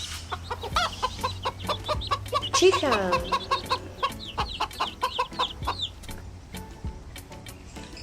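Chicken clucking: a rapid run of short clucks that dies away about six seconds in.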